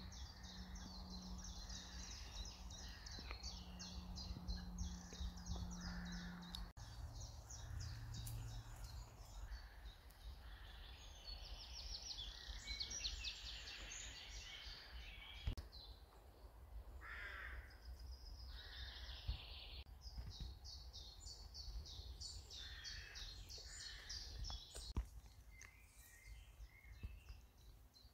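Songbirds singing in a garden: repeated rapid, high trilling phrases with pauses between them, and a few lower calls mixed in. A faint steady hum sits under them in the first several seconds.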